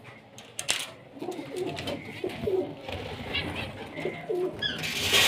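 Pigeons cooing in wavering low calls, with a few short high chirps near the end and a brief rustling burst at the very end.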